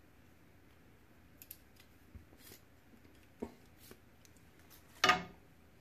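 Small aluminium mini tripod being handled, its legs and head giving a few light clicks and taps, with one louder short knock about five seconds in.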